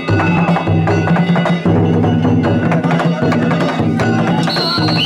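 Danjiri festival music: a taiko drum and small hand gongs (kane) struck in a fast, continuous rhythm. A shrill whistle sounds near the end.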